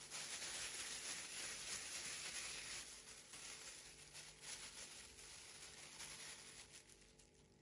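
Faint rustling of thin disposable plastic gloves as hands scoop and roll soft mashed potato into a ball, fading away near the end.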